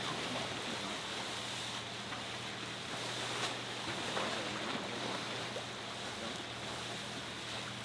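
Steady wash of wind and water around a sailing boat at sea, with a low steady hum underneath and a couple of faint clicks.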